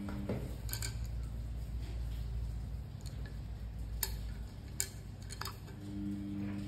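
Wooden colored pencils being picked up and handled on a marble tabletop: a handful of sharp clicks as they tap against each other and the stone, over a low steady background hum.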